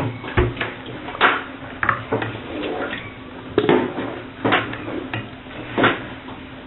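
Kitchenware clinking and knocking irregularly as a pot, cups and a strainer are handled: about eight separate sharp knocks.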